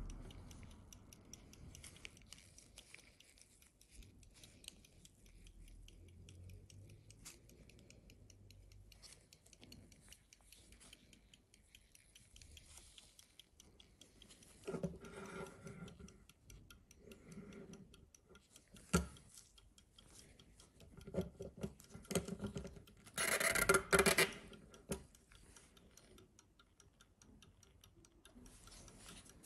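Circa-1760 James Cowan silver verge fusee pocket watch ticking rapidly and faintly. Gloved hands handle the case with several spells of rubbing and knocking, the loudest about four fifths of the way in.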